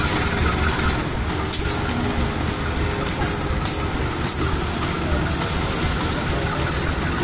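Diesel-electric locomotive running as it hauls a passenger train slowly out of the station: a steady low rumble with a few sharp clicks.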